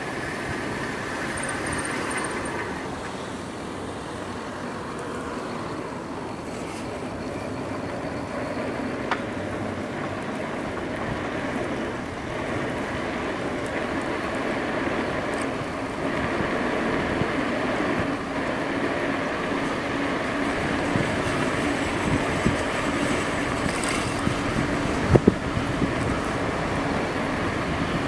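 Riding noise from an A2B Metro electric bike on the move: a steady rush of wind and road noise. About twenty seconds in, a steady hum joins it, and a couple of sharp knocks come near the end.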